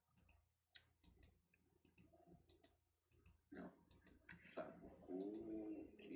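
Faint, irregular clicking from a computer being operated: sharp clicks, often in pairs, about two a second. A short low pitched murmur comes near the end.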